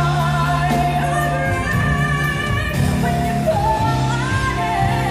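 A woman singing a ballad live with a backing band, holding and bending long melodic notes over sustained low accompaniment.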